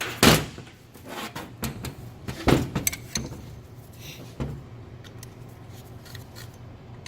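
Metal parts and hand tools being handled on a workbench: two loud knocks, the first just after the start and the second about two and a half seconds in, with lighter clinks and rattles between and a softer knock a couple of seconds later.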